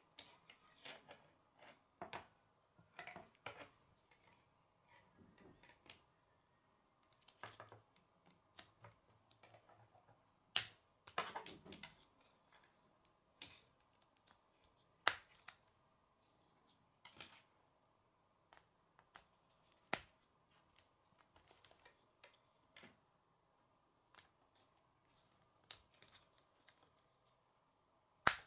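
K'nex plastic pieces being handled and snapped together: scattered small clicks and rustles, with a few sharper snaps standing out, over a faint steady hum.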